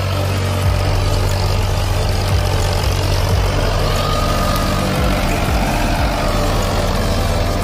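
Ford 3620 tractor's three-cylinder diesel engine running steadily under load as it pulls a spring-tine cultivator through hard ground.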